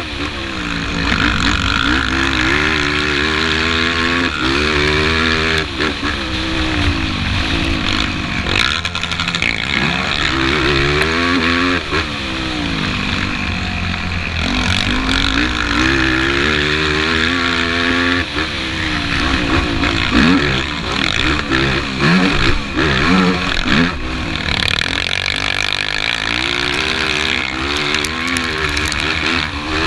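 Sport quad's engine heard close up from on board, revving up and backing off again and again under hard riding, with a choppier run of short throttle blips about two-thirds of the way through.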